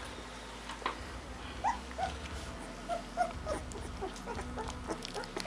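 Young golden retriever puppy whimpering in short high squeaks as it is dosed with wormer. The squeaks are few at first and come thick and fast from about halfway through.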